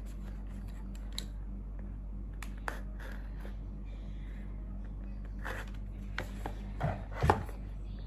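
Packaging of a newly bought charger being handled and opened by hand: scattered light clicks and short rustles, with a couple of sharper knocks about seven seconds in. A steady low electrical hum runs underneath.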